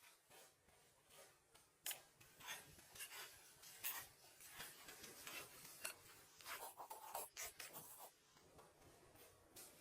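Faint, irregular scraping and rubbing strokes, as of materials being handled or worked by hand, busiest through the middle.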